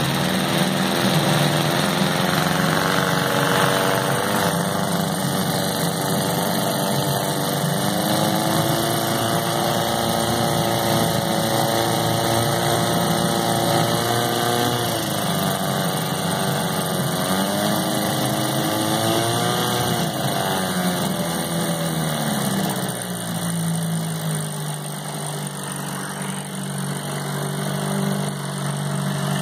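Mercury 4 hp outboard motor running in a water test barrel, its engine speed rising and falling a few times through the middle, then settling to a lower, steady idle near the end.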